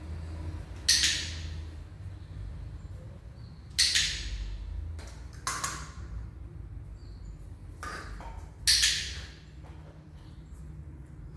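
Dog-training clicker clicked four times at uneven intervals, each a sharp short click. The clicker is being loaded: each click is paired with a food treat so the puppy learns the click means a reward.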